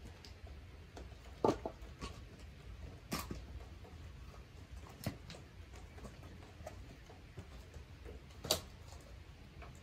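Split firewood knocking and clunking as it is handled: four louder wooden knocks at irregular intervals, with fainter ticks between them, over a low steady rumble.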